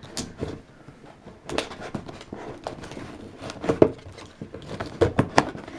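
A cardboard box and its plastic packaging being handled and opened: irregular clicks, taps and rustling, with the sharpest clicks about four seconds in and again just after five seconds.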